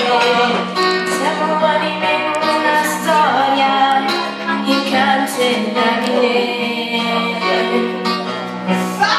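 Pop song playing, a female voice singing over an instrumental backing track with a steady bass line.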